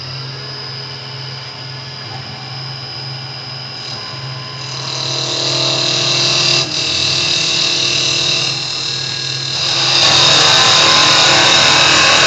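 CNC woodturning copy lathe running, a steady motor hum and whine as its two tools cut the spinning wooden blank. It grows louder in two steps, about four and a half seconds in and again about ten seconds in.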